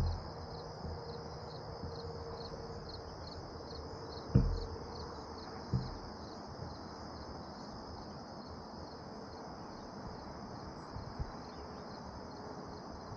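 Insects trilling in the meadow grass, a steady high pulsing chorus. Three dull low thumps cut in, at the start and about four and six seconds in.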